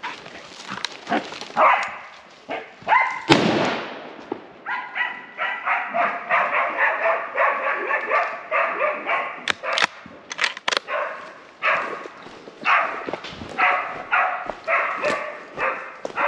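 A tracking dog barking in two long runs of quick, excited yelps, with a short break in between. There is a loud rustle of brush about three seconds in.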